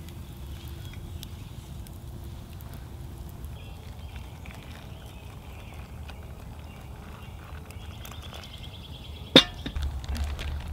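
Campfire crackling with faint scattered pops, then hot water pouring from a kettle into a metal pot for several seconds. Near the end a single sharp knock, the loudest sound.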